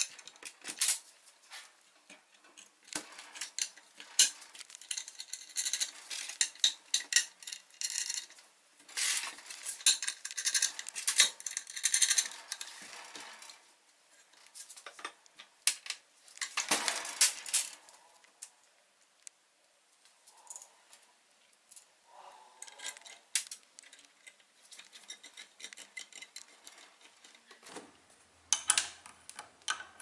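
Small steel hardware (bolts, nuts, washers, brackets) being handled and fastened by hand on a metal assembly: irregular metallic clinks, clicks and short scrapes in uneven clusters with quiet gaps between.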